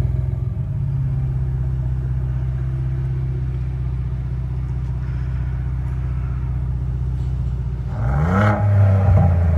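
Ford Bronco engine idling steadily through a new Flowmaster Outlaw Series axle-back exhaust, with a throaty note. Near the end it is revved once, the pitch rising quickly and falling back.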